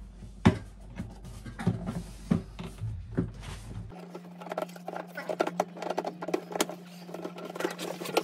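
Irregular light plastic clicks, taps and rubbing as a plastic protective cover is pushed and fitted onto the top of a wall-hung toilet frame's cistern.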